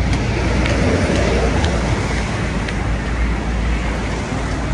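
Steady noise of heavy road traffic on a busy multi-lane highway, a continuous rumble of passing motor vehicles.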